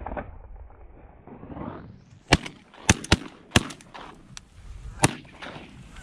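Shotgun reports from a goose hunt: about five sharp shots, unevenly spaced, between about two and five seconds in.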